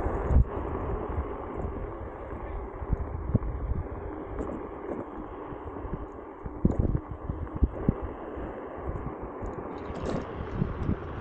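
Wind buffeting the microphone and tyre rumble of a Nami Klima electric scooter riding along a paved path, with a few sharp knocks.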